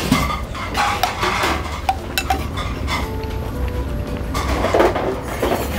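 Metal tongs clinking and scraping against a small ceramic bowl in a series of short, sharp clicks, over light background music and a steady low hum.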